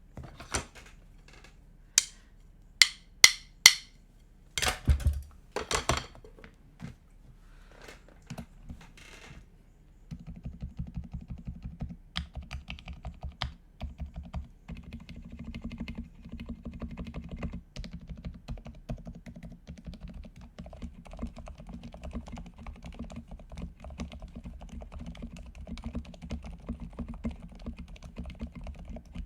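Leopold FC660M mechanical keyboard with Cherry MX Silent Red linear switches being typed on. For the first ten seconds or so there are separate key presses, a few of them loud sharp clacks; after that comes steady fast typing.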